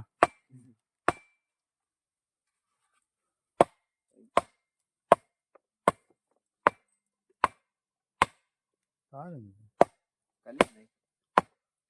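Sharp chopping blows on wood, one every second or so, with a pause after the first two.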